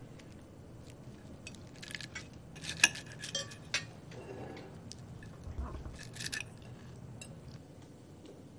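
Knives and forks clinking and scraping on ceramic plates as a salad is cut and eaten: scattered light clinks, a cluster in the middle and a few more about six seconds in.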